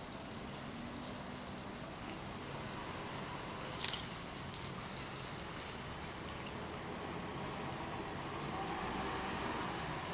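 MTA transit bus driving slowly past on wet pavement: steady engine sound and tyre hiss that swells toward the end, with one brief sharp click about four seconds in.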